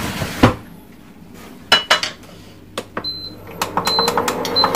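Cookware and utensils clinking and knocking as cooking gets under way: a few separate clicks, then a quicker run of clinks in the last second or so, with several short high beeps among them.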